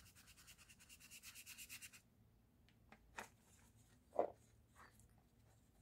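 Faint quick scrubbing of a wet watercolour brush on paper, an even run of strokes growing louder and then stopping abruptly about two seconds in. A couple of faint taps follow, the clearest about four seconds in.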